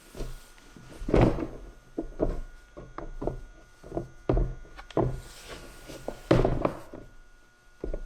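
Irregular knocks, thunks and rubbing as a truck tool box lid is handled and worked into place, with two heavier thumps about a second in and past six seconds.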